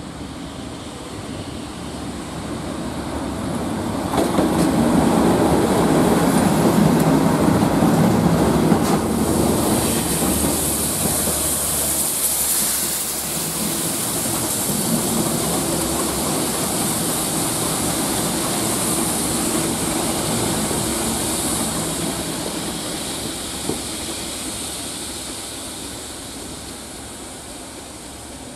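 Railhead treatment train passing, hauled by a DRS Class 37 diesel locomotive with its English Electric V12 engine. The engine rumble builds to a peak a few seconds in, with wheels clattering over the rail joints, and then a steady high hiss from the high-pressure water jets blasting leaf residue off the rails, fading as the train moves away.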